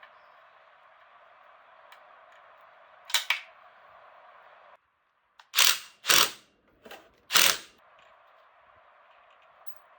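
Several sharp knocks or clacks over a steady hiss: two close together about three seconds in, then four louder ones from about halfway through.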